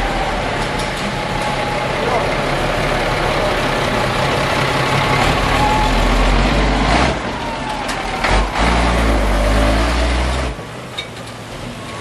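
Star 266 fire truck's diesel engine running as the truck pulls out and drives away, with a couple of brief sharp sounds around seven and eight and a half seconds in. The deep engine rumble falls away sharply about ten and a half seconds in.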